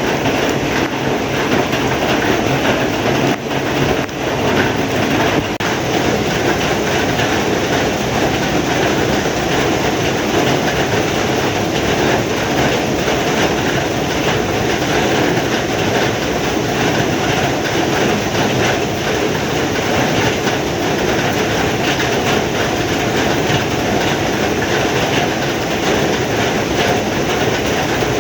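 Heavy rain falling, a loud, steady, dense hiss with no letup.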